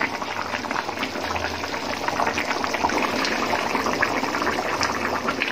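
A thick fish-head and mung dal curry boiling in a pot, its surface bubbling with a steady stream of small, irregular pops.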